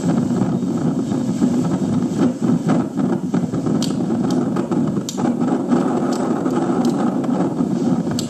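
Typhoon wind, a loud, dense rush that rises and falls in gusts, with scattered sharp clicks in the second half.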